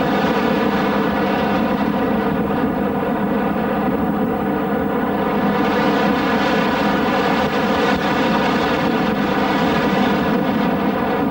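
Engine and propeller of an Ag-Cat biplane on floats running with a steady drone.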